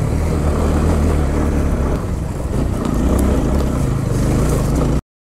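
Motorcycle engine running under way, with wind buffeting a helmet-mounted action camera's microphone; the sound cuts off suddenly about five seconds in.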